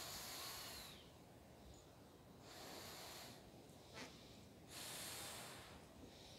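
A person blowing up a 24-inch clear balloon by mouth: faint, airy rushes of breath about every two seconds, three in all, with a light click about four seconds in.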